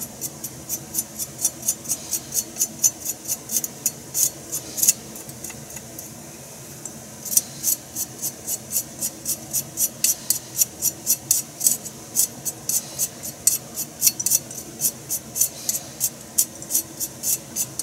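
Kitchen knife shaving thin slivers off a burdock root (sasagaki): quick scraping strokes about three a second, with a pause of about two seconds midway.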